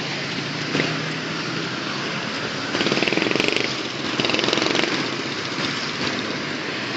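Street traffic: a steady rush of road noise with vehicles passing, two of them louder and rattlier, about three seconds and four and a half seconds in.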